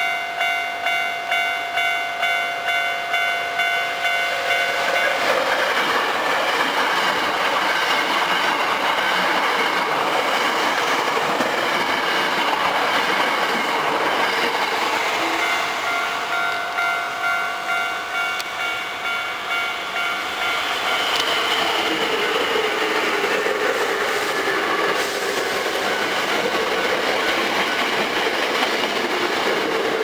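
Japanese level-crossing warning bell ringing about twice a second, then Hankyu 5300-series electric trains running through the crossing from about 5 seconds in, with steady wheel-on-rail noise and clatter over the rail joints. The crossing bell can be heard again in the middle, and the running noise is loudest near the end as a train passes close by.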